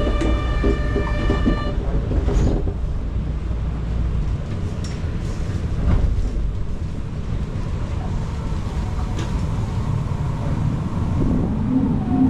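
Kyoto subway train running, a steady rumble that is heavier for the first four seconds or so and then eases. A steady tone with several even overtones sounds over it for the first second or two, and a voice begins near the end.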